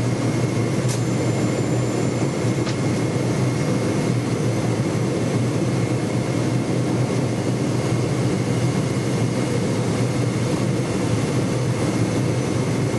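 Steady cabin noise of a Boeing 747 on approach: the low rumble of its Rolls-Royce RB211 engines and rushing airflow heard from inside the cabin, with a faint steady high whine over it.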